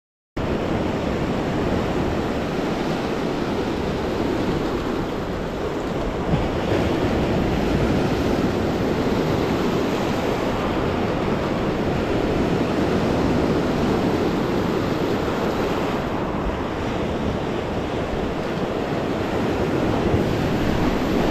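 Lake Superior surf washing steadily onto a cobble beach, cutting in suddenly about half a second in.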